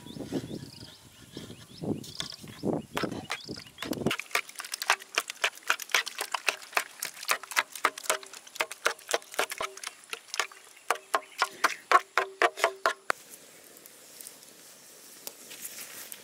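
A utensil beating an egg mixture in a metal bowl: rapid, rhythmic clinking with a ringing note, several strokes a second, after softer scraping and mixing in the first few seconds. The clinking stops about thirteen seconds in.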